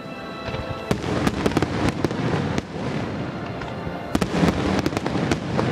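Fireworks bursting overhead: a rapid run of sharp bangs and crackles begins about a second in and keeps going, over music with held notes.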